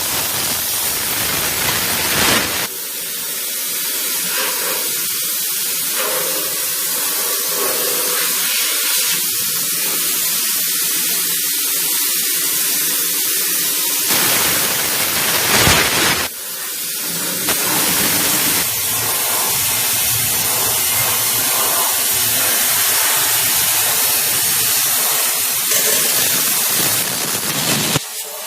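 Household high-pressure steam cleaner jetting steam, a loud steady hiss that shifts in tone a few times as the spray changes.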